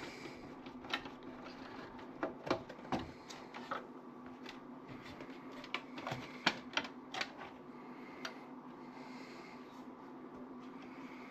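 Scattered small clicks and taps of hands working parts loose inside a desktop computer case, about a dozen spread unevenly, over a faint steady hum.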